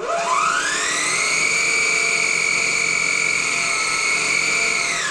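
Homemade mini metal lathe, driven through a timing belt by a Consew CSM1000 3/4 hp brushless sewing-machine motor, spinning up as a rising whine. It reaches full speed in about a second and a half, around 2,200 rpm at the spindle, and holds a steady high whine. Right at the end it is switched off and the pitch falls away as it winds down.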